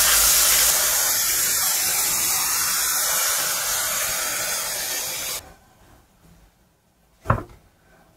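Burger patties sizzling in a nonstick frying pan, a steady hiss that cuts off suddenly about five seconds in. After that it is near quiet, with a single sharp knock about seven seconds in.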